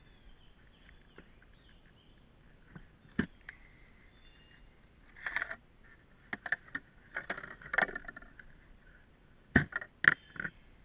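Handling of tools in and around a plastic toolbox: scattered clicks, scrapes and clatter as a chainsaw and its plastic bar cover are lifted out and the lid is shut, ending in four loud knocks as the lid is latched and a metal T-wrench is set on top.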